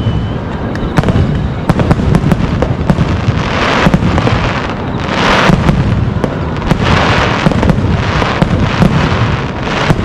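Aerial fireworks shells bursting in quick succession: many sharp bangs, with several stretches of crackling between them.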